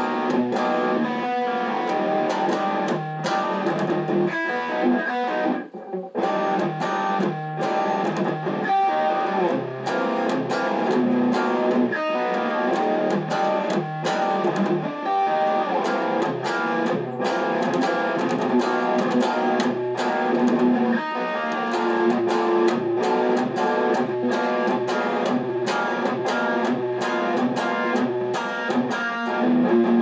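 Kiesel K-series electric guitar with Kiesel Lithium pickups, played with a steady stream of picked single notes and chords, a brief break about six seconds in.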